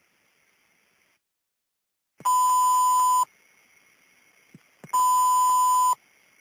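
Fire-dispatch radio alert tone: two identical long, steady beeps, each about a second, separated by a gap of about a second and a half. They sound between two readings of a structure-fire dispatch, as an alert to the responding companies.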